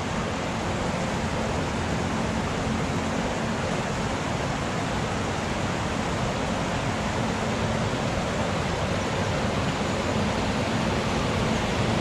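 River rapids and low falls rushing steadily over rock ledges, growing slightly louder near the end.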